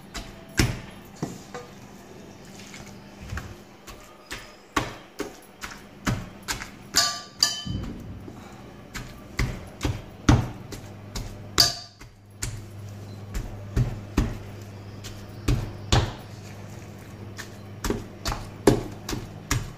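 Pestle pounding marinated bone-in chicken pieces in a stainless steel bowl: irregular dull knocks, about one or two a second, with a few sharper ringing knocks where it strikes the steel.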